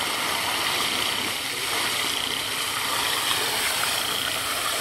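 Steady rushing and splashing of a fountain's many water jets falling back into its basin.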